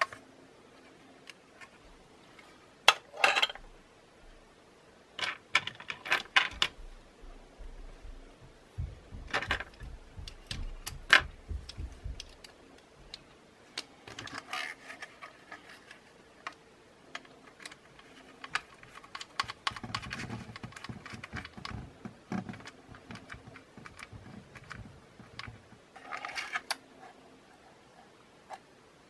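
Clicks, taps and knocks of a DJI Mavic Air 2's plastic body parts being handled and fitted together, coming at irregular intervals with a few louder knocks.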